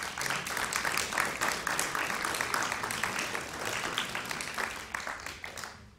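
Audience applauding: a dense patter of hand claps that dies away just before the end.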